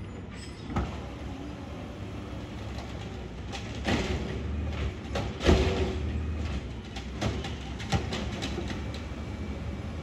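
Automated side-loader garbage truck running steadily, with a series of metallic bangs and clanks as its arm lifts a cart and shakes it out into the hopper; the loudest bang comes about five and a half seconds in.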